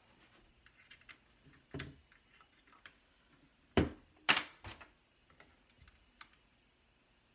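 Small clicks and taps of hands working the iron sight off an airsoft M4's top rail, with two louder knocks about four seconds in.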